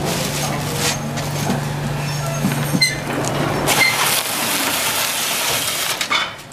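Automatic carton tape sealer running with a steady motor hum while a cardboard box is folded shut and fed through it, with cardboard and plastic rustling. The hum stops about four seconds in, and a brighter scraping noise follows as the box passes through the machine.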